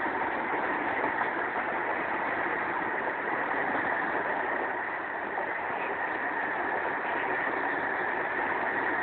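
Fully laden log wagons passing at line speed: a steady rolling rush of steel wheels on the rails.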